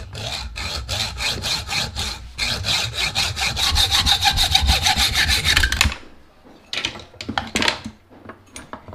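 Hand hacksaw cutting through a steel bolt held in the cylinder of an 80cc motorized-bicycle engine, in fast, even strokes that stop suddenly about six seconds in. A few light knocks follow near the end.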